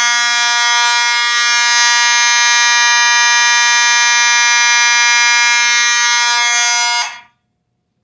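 Fire alarm horn sounding a continuous, steady buzzy tone for a general fire alarm on a Kidde Gemini panel. It cuts off abruptly about seven seconds in when the alarm is silenced at the panel.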